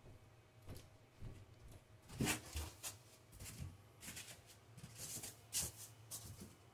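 Scattered rustles and light knocks of someone handling and rummaging through things, loudest about two seconds in and again around five seconds in.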